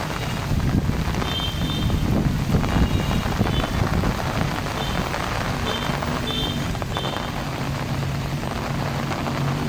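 Strong storm wind buffeting the microphone, a rough low rumble that rises and falls, during heavy rain. A few short, faint high-pitched beeps sound through it.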